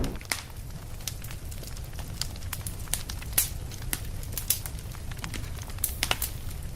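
Fire burning: a steady low rumble of flame with irregular sharp crackles and pops, a few louder pops in between.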